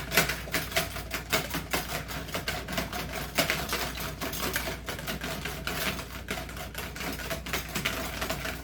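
Wire whisk beating two raw eggs in a bowl, its wires clicking against the bowl in a rapid steady rhythm of several strokes a second.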